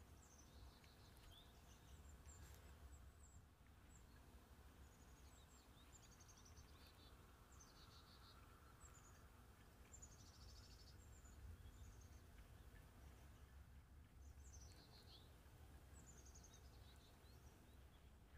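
Near silence, with faint high bird chirps repeating about every second over a low hum.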